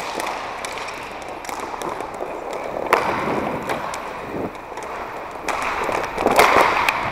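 Inline skate wheels rolling and grinding on a plastic sport-court floor, heard close up as the camera wearer skates, with sharp clacks from sticks and ball now and then; the loudest clacks come about three seconds in and again near the end.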